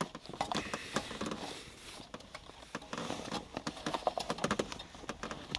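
Light, irregular plastic clicks and taps from hands prying at the tabs of a car's dashboard stereo unit.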